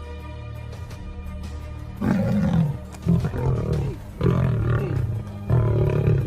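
Background music, then a large wild animal giving four loud, low calls about a second apart, starting about two seconds in.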